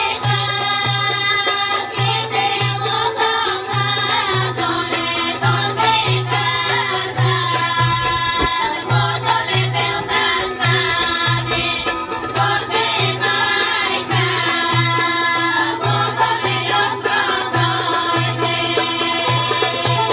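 A group of women singing a Bulgarian folk song in costume-choir style, over a regular low beat that pulses about twice a second.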